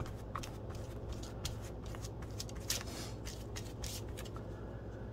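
A paintbrush dabbing and brushing watered-down Mod Podge onto tissue paper: a string of short, irregular soft swishes and taps over a steady low hum.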